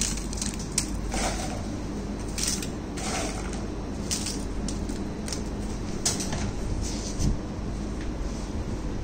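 Plastic-gloved hands placing fries and wedges on a foil-lined plate: scattered short rustles and crackles, about one every second, over a steady background hum.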